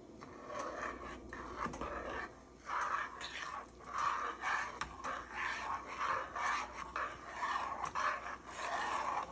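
A metal spoon stirring mashed potatoes in a small stainless saucepan, a scraping, sloshing stroke about twice a second that grows stronger about three seconds in.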